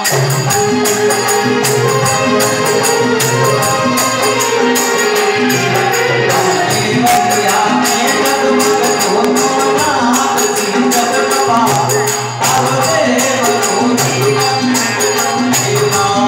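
Live devotional bhajan music: harmonium, a Roland Juno-D keyboard and a dholak drum playing to a steady beat, with a singer's voice.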